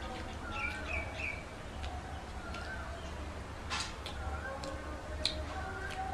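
Chewing and lip-smacking of people eating pizza, with sharp mouth clicks throughout, loudest about four seconds in. Birds chirp in short repeated calls in the background over a low steady hum.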